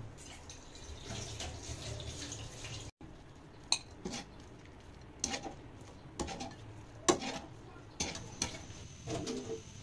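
Cooking in a pot of boiling water: a few seconds of steady bubbling, then a series of sharp clinks and knocks of utensils against the pot and dishes.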